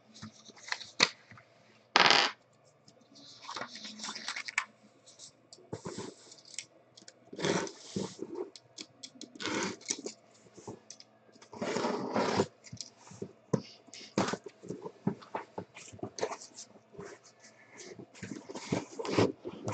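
Cardboard case handled on a table and slit open with a box cutter, then its flaps pulled open: irregular knocks, scrapes and rustles of cardboard and tape, with a loud knock about two seconds in.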